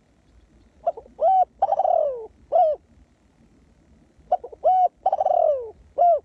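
Spotted dove cooing: two matching phrases about three and a half seconds apart, each a quick short note, a coo, a long falling coo and a short closing coo.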